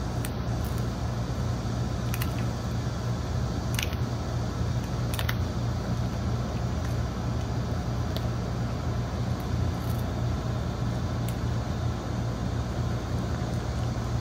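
Popcorn machine running with a steady motor hum, with a few sharp clicks in the first five seconds.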